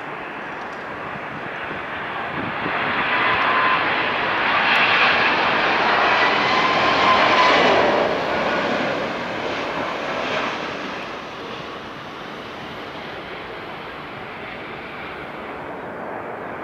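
Boeing 777-200ER on final approach passing close overhead, its Rolls-Royce Trent engines at low thrust: jet noise swells to a peak about seven seconds in, with a whining fan tone that drops in pitch as the airliner goes past, then fades to a lower steady level.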